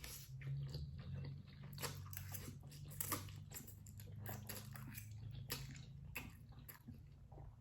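Close-miked chewing of black bean noodles: a faint, irregular string of small wet mouth clicks and smacks.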